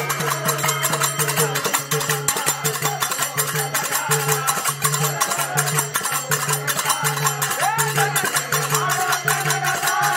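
Devotional bhajan music: men singing to a harmonium, with a fast, steady beat of hand-clapping.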